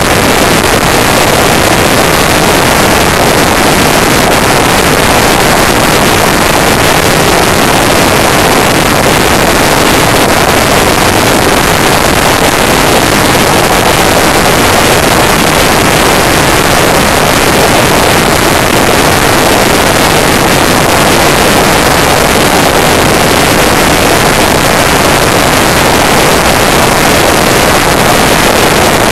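Loud, steady rush of wind and road noise on the microphone of a camera on a Honda Deauville NT650V motorcycle cruising at road speed.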